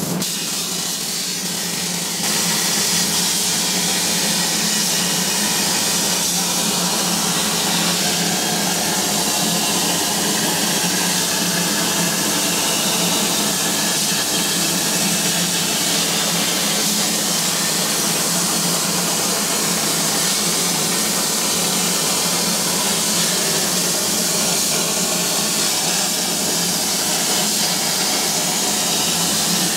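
CNC plasma cutter cutting 2 mm steel plate: the plasma arc gives a steady, loud hiss, which rises slightly about two seconds in.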